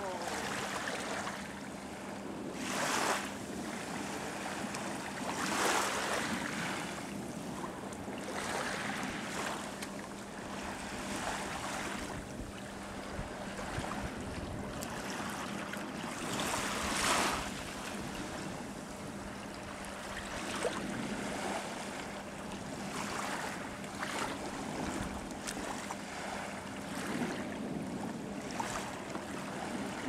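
Shallow lagoon water washing and lapping at a sandy shore, swelling louder a few times, with wind on the microphone and a steady low hum underneath.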